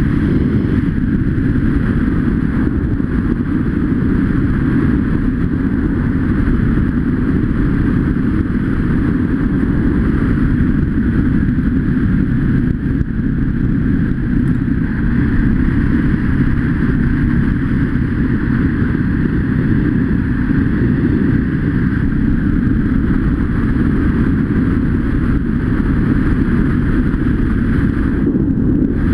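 Dirt bike engine running steadily at riding speed, heard through a helmet-mounted camera with wind rush on the microphone.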